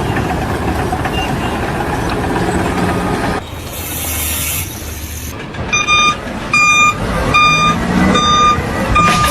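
A heavy vehicle's reversing alarm beeping at a steady pace, about one and a half beeps a second, starting a little past halfway. Before it, a steady machinery rumble cuts off abruptly, followed by a short hiss.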